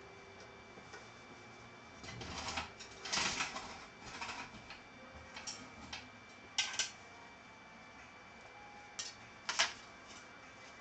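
Scattered sharp clicks and short rustling scrapes, with a faint steady high hum under them: small objects being handled at close range.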